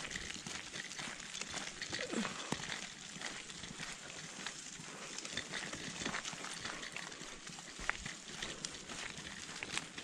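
Footsteps crunching on a gravel path at a walking pace, with a short falling sound about two seconds in.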